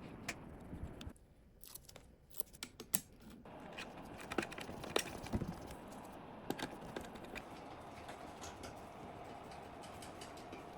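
Scattered light clicks and taps of computer parts being handled and fitted together during a PC build.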